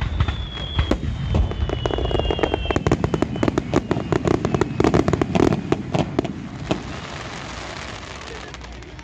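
Fireworks display: aerial shells bursting in a rapid barrage of bangs and crackles, densest through the middle, with a high whistle falling slightly in pitch over the first few seconds. After about seven seconds the bangs stop and a fading fizz of crackle trails off.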